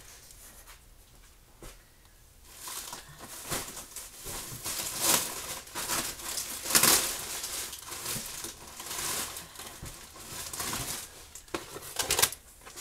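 Packaging crinkling and rustling as groceries are dug out of a delivery box, in irregular spells starting a couple of seconds in, with louder crackles about five and seven seconds in and again near the end.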